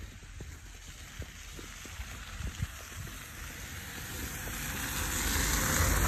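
Footsteps in snow, soft thumps about two a second. Then a vehicle passes, its tyre hiss swelling to loudest near the end.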